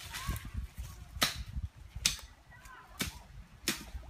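Four sharp cracks, less than a second apart, over a low rumble.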